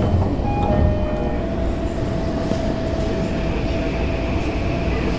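Subway train running into an underground station platform: a steady low rumble of wheels on rail with a steady whine from the train held throughout after about a second in.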